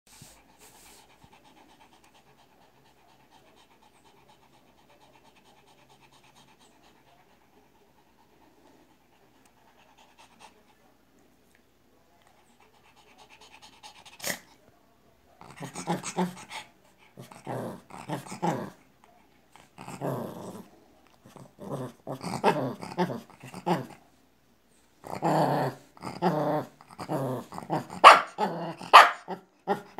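A Shih Tzu barking at its owner in a string of short calls. The calls start about halfway through, come every second or so, and grow louder, with the sharpest barks near the end. The first half is nearly silent apart from a faint steady hum. These are attention-seeking barks: the dog barks when it wants to 'talk' with its owner.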